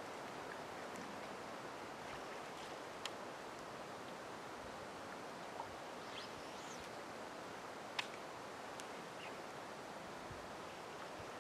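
Quiet open-air ambience over still water: a steady soft hiss with a few faint sharp clicks, the clearest about eight seconds in, and a brief high rising bird chirp just before it.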